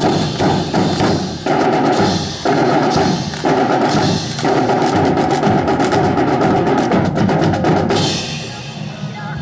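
Drum-led band music accompanying a rifle drill team, overlaid with rapid sharp clacks of rifles being handled in unison. The clacking stops about eight seconds in and the sound drops a little.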